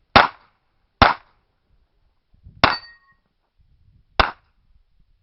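Revolver shots fired one at a time in an IPSC stage, four shots about a second or more apart. The third is followed by a brief metallic ring.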